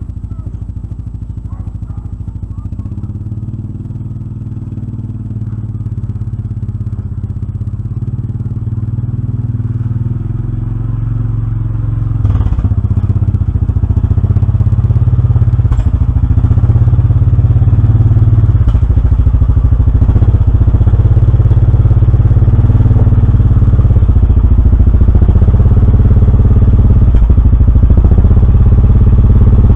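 Yamaha Grizzly 700 ATV's single-cylinder engine running, growing steadily louder with a jump in level about twelve seconds in, with a few light clattering knocks.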